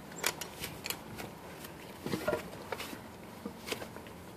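Footsteps and light clatter as a man walks away: scattered, irregular soft taps and clicks over a faint steady background.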